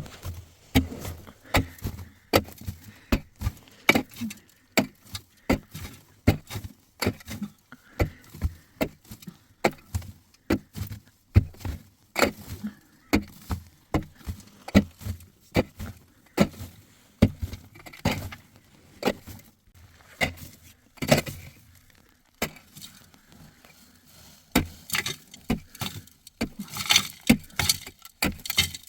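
A long run of sharp, hard strikes, about one to two a second, with a short pause about two-thirds of the way through.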